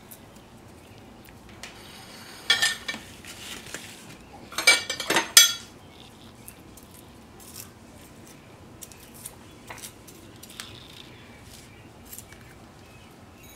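Metal spoon scraping and clinking against a plate as charred skin is scraped off a roasted onion, in two short clattering bursts about two and a half and five seconds in, with light scratches and ticks between.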